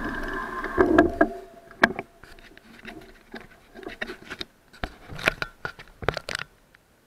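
A steady hum stops about a second in. It is followed by irregular sharp clicks and knocks from the bicycle and its handlebar-mounted action camera being handled as the bike stands still.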